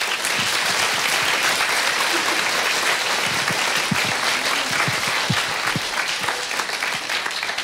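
Audience applauding, a dense, even patter of many hands clapping.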